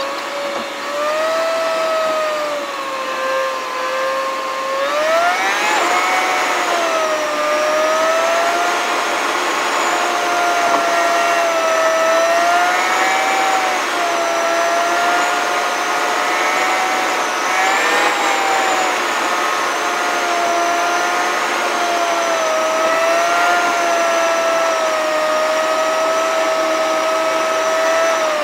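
A car driving, heard from inside: a steady high whine whose pitch drifts slowly up and down with the car's speed, climbing sharply about five seconds in.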